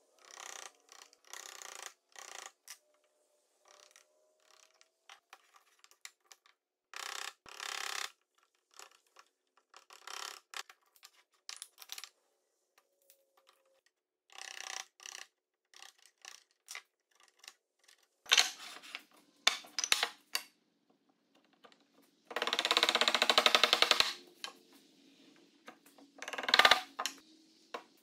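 Mallet blows on a wood chisel and on hardwood joinery: a series of irregular sharp knocks and wooden taps, with a stretch of rapid clatter about two-thirds through. The loudest strikes come in the last ten seconds.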